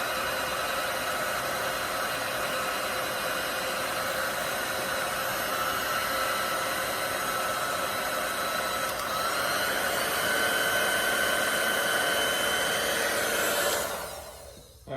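Electric heat gun blowing steadily with a fan whine, shrinking heat-shrink tubing over a wire connection; about nine seconds in its whine rises slightly and it gets a little louder, then it is switched off and winds down near the end.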